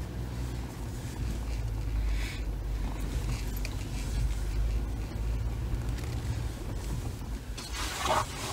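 Jeep Gladiator driving slowly along a rough dirt trail: a steady low rumble of engine and tyres, with brief rattles and knocks from the bumpy track. The loudest of these comes just before the end.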